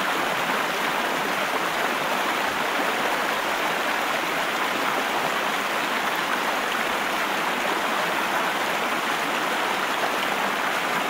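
Whitewater river rushing over rocks: a steady, unbroken roar of fast-flowing water.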